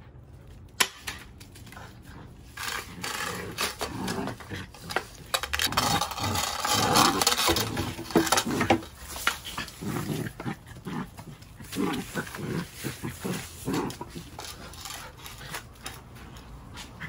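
Mini labradoodle puppy growling in play as it bites at a push broom, with the broom's bristles scraping over concrete. The sound is irregular, busiest and loudest about six to nine seconds in.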